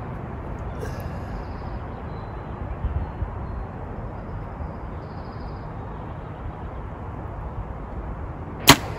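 Compound bow being shot: a single loud, sharp snap of the string on release near the end, over steady low background noise.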